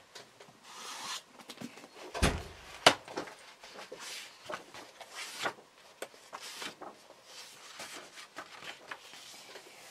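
A door shutting with a thud a little over two seconds in, followed by scattered light knocks and rustling.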